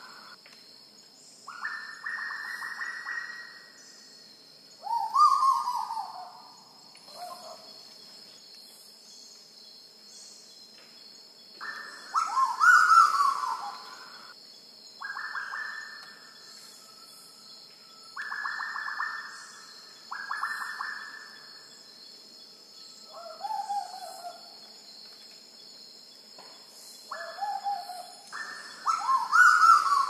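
Black-billed koel calling: loud bouts of calls every few seconds, some rapid notes sliding downward in pitch, others held level as fast pulsing phrases.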